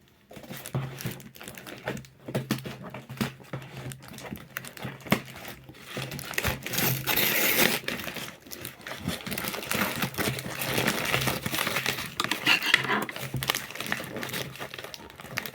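Packaging being crinkled and rustled by hand as a box is opened, with many small crackles and clicks that grow louder and busier about halfway through.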